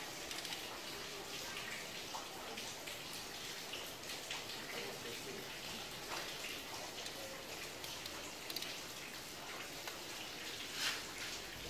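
Hand tools working on the cylinder head bolts of a Peugeot 607 2.2 HDi diesel: faint metallic ticks and clicks as the head is torqued down, over a steady hiss. One sharper click comes near the end.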